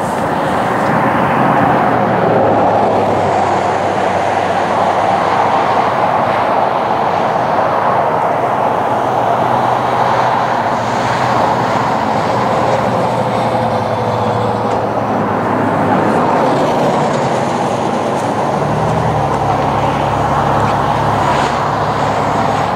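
Union Pacific diesel freight locomotive approaching, a steady engine drone over a continuous rushing rumble. About 19 seconds in the engine's low note changes and grows stronger.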